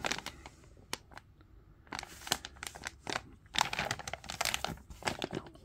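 Plastic packaging of a Match Attax Mega Starter Pack crinkling in irregular bursts as it is handled and opened.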